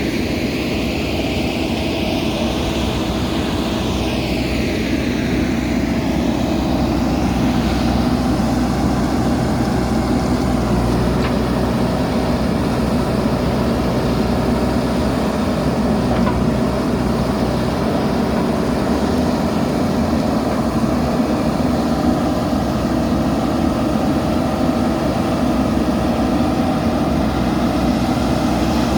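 Diesel engine of a JCB backhoe loader running steadily while working, with a higher whine that rises and falls over the first several seconds.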